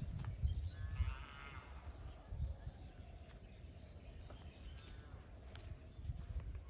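An animal bleating: one quavering bleat about a second in, then fainter ones, over low thumps on the microphone.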